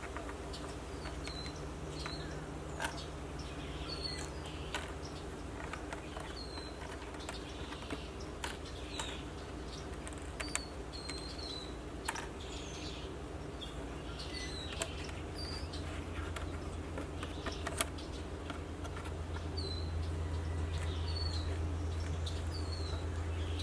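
Outdoor ambience of small birds giving short, repeated chirps, with scattered sharp clicks and a low steady hum that swells in the second half.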